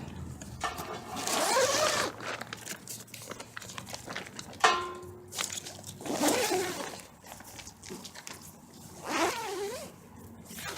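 Tent door zipper being pulled open in several rasping strokes, with a sudden brief pitched squeak about halfway through.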